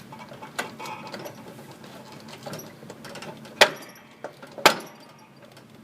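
Riding mower's steering gears clattering as the steering wheel is turned, with two loud sharp pops about a second apart in the second half. The pops are the steering shaft's small pinion, which is allowed to travel across the sector gear, riding over its teeth instead of engaging them.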